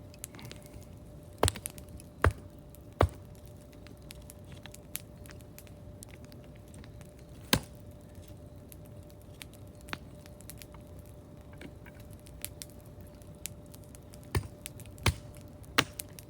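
Campfire crackling: sharp wood pops at irregular intervals, a few loud ones standing out over a quiet background.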